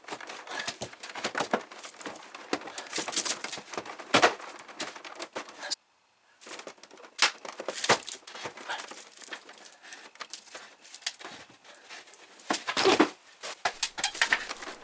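Plastic protective film crinkling and rustling while a mini-split heat pump's indoor unit is pushed and shifted on its wall bracket, with scattered clicks and several louder knocks. The sound drops out completely for a moment about six seconds in.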